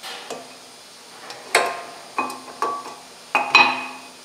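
Steel-backed brake pads clinking and clicking against the metal caliper bracket and its clips as they are pushed and turned into place, about five sharp ringing clinks in the second half.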